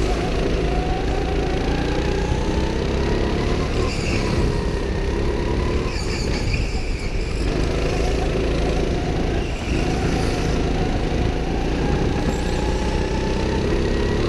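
Go-kart engine running hard, heard from on board the kart, its revs rising and falling and dipping twice, about six and nine and a half seconds in.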